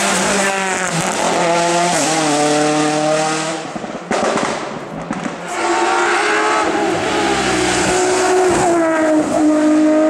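Two race cars at full throttle on a hill-climb course, one after the other. A Citroën Xsara rally car accelerates past, upshifting twice, and fades about four seconds in. An open sports-prototype racer then comes up at high revs, its engine note rising and then dropping with a shift near the end.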